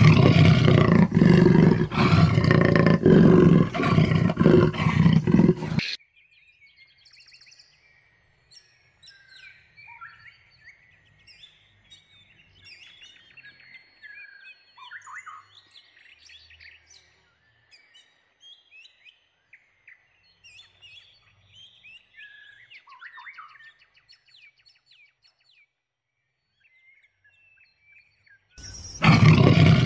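A big cat roaring loudly for about the first six seconds, then a stretch of faint bird chirps and calls before the roaring starts again near the end.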